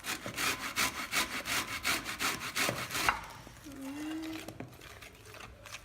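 A lime being rubbed against a grater to take off the zest, in quick rasping strokes about six or seven a second, stopping about three seconds in.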